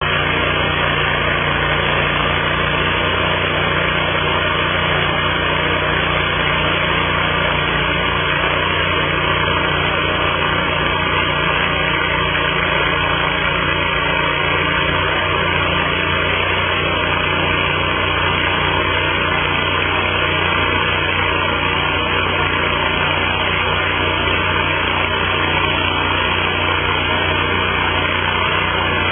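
Engine of a Peterson Dedicated Wide Slabber, a chainsaw-bar slabbing mill, running loud and steady at an unchanging speed.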